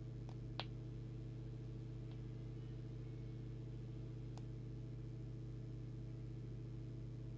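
Steady low electrical hum, with a few faint clicks.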